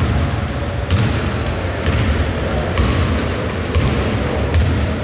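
A basketball being dribbled on an indoor court, a sharp bounce about once a second over the hall's low rumble, with a couple of short high squeaks.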